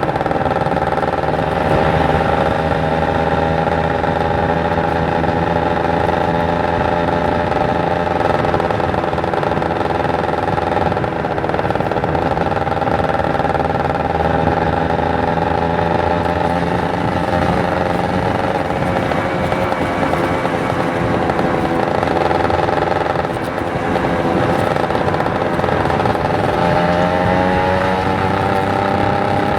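Kawasaki Ninja 150 RR's two-stroke single-cylinder engine running steadily under way. The revs ease off slowly at first, hold, and rise again near the end as the bike picks up speed.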